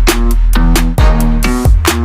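Electronic dance music with a heavy bass line and a steady drum beat.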